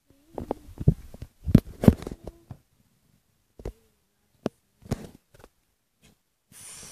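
Irregular knocks and clicks, several close together in the first two and a half seconds, then a few single ones spread apart, with a short hiss near the end.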